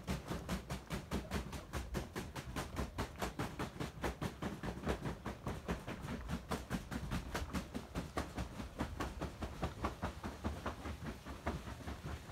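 Rapid, even pounding of dried cannabis plant material, about five strokes a second, as done to make kif or hashish.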